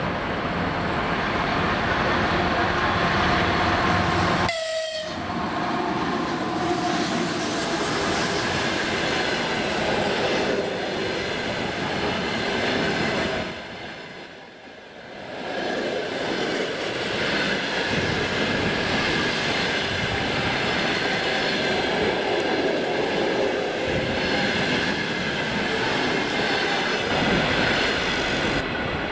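EP2K electric locomotive and its passenger coaches passing close by, wheels clattering over the rail joints, with a horn sounding that falls in pitch about five seconds in.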